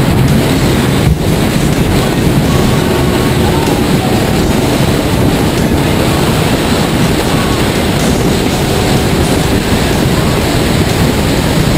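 Wind buffeting the microphone and water rushing and spraying off the hull as a fishing boat runs fast through choppy sea, with the boat's engine droning steadily underneath.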